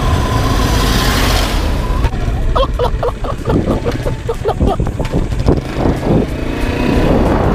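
Honda TMX 155's single-cylinder four-stroke engine running under wind noise on the rider's camera, with a large vehicle rushing past in the first two seconds. From about two and a half to six seconds in comes a rapid run of short calls from turkeys on the road.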